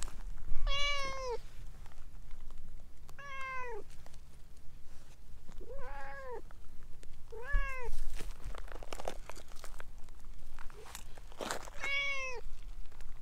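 Orange tabby cat meowing five times, short calls a few seconds apart, each about half a second long and dropping in pitch at the end. Light rustling and scuffing between the calls.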